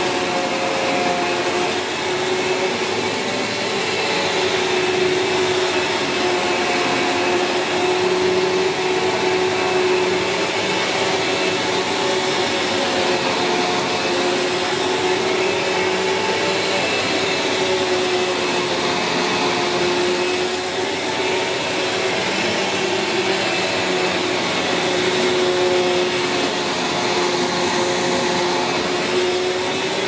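Sanyo SC-A7AX 1200 W bagged upright vacuum cleaner running steadily while being pushed back and forth over carpet, its motor hum wavering slightly in pitch with each stroke.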